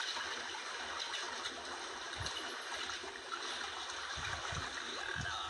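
Steady rush of seawater washing over a rocky shore, with a few brief low thumps in the second half.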